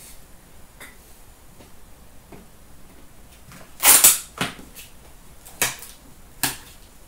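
Empty trading-card box packaging handled and dropped into a plastic bin: a loud rustling clatter about four seconds in, then three or four short sharp clacks.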